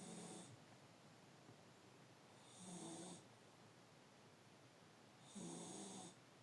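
A sleeping pet snoring softly: three snores about two and a half to three seconds apart, each lasting around half a second.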